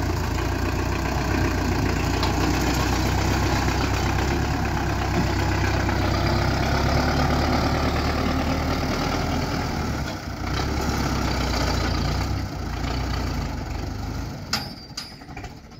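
Belarus tractor's diesel engine running steadily as it tows a trailer through mud. The sound dips briefly about ten seconds in, then falls away near the end with a few sharp clicks.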